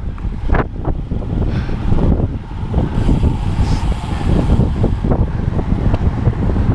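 Wind buffeting the microphone of an action camera riding on a racing bicycle at speed, a dense low rumble with a few sharp clicks.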